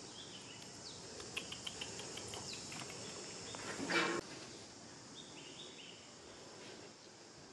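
Outdoor ambience with a steady high insect chorus. A run of light clicks comes in the first few seconds, then one short, loud, noisy burst about four seconds in, followed by a few brief high bird chirps.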